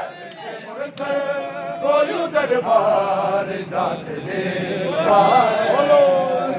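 A group of men chanting a noha, a Shia mourning lament, together in loud unison, with a few sharp slaps of matam, hands striking the chest, cutting through the singing.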